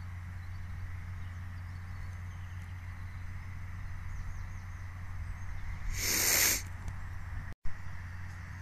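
Distant Massey Ferguson 6465 tractor working a Vicon RF 2235 round baler: a steady low engine drone with a faint airy hiss over it. About six seconds in comes a short, louder hiss, and a second and a half later the sound drops out for an instant with a click.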